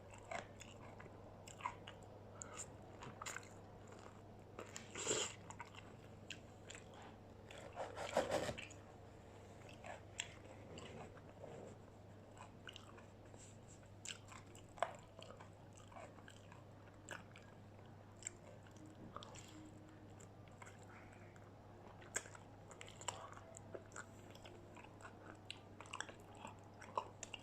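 A person biting and chewing crisp battered fried chicken and curly fries close to the microphone: crunchy bites and small chewing clicks, the loudest bites about five and eight seconds in, over a faint low hum.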